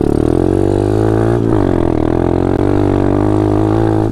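Taotao DB17 125 pit bike's single-cylinder four-stroke engine running hard under throttle on a short hill climb; its pitch dips briefly about a second and a half in, then climbs and holds.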